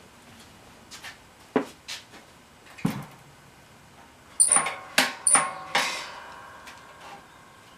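Hand tools and metal parts being handled: scattered light knocks, then a quick run of sharp metal clanks about four and a half to six seconds in, the last one ringing briefly.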